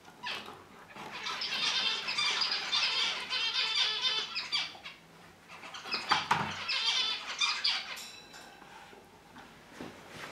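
A dog gnawing and crunching a large chew bone. The crunching comes in two spells of rapid scraping, a longer one starting about a second in and a shorter one past the middle.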